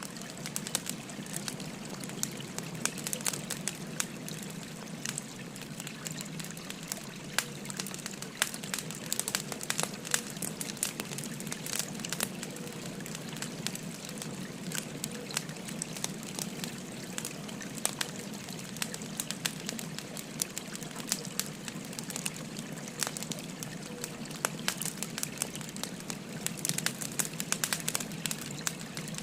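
Wood fire crackling with frequent sharp pops over the steady rush of a flowing stream.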